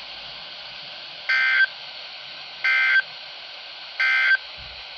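NOAA Weather Radio SAME end-of-message code: three short, identical buzzy digital data bursts about 1.3 seconds apart, marking the end of the alert. Steady radio hiss lies between the bursts.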